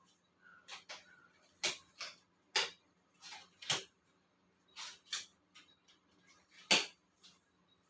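Disposable medical examination gloves being pulled onto the hands, heard as a string of irregular sharp clicks and crackles.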